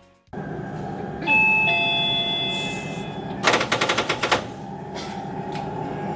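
Shinkansen cab ATC signal alert over the train's steady running rumble: a bright two-note chime, then just under a second of rapid electric-bell ringing.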